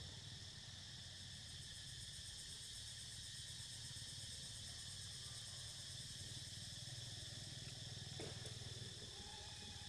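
Steady high-pitched chorus of insects, several even layers of buzzing, over a low steady hum. A faint short rustle in the leaf litter comes about eight seconds in.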